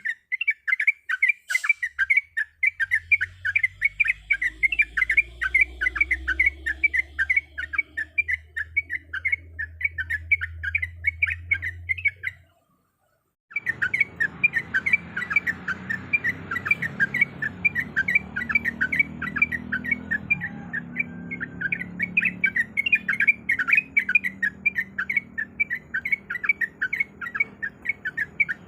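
Yellow-vented bulbul (trucuk) calling in a fast, unbroken run of short, chattering notes over a low background rumble. The call is used as a lure call. About twelve seconds in it cuts out for about a second, then carries on the same way.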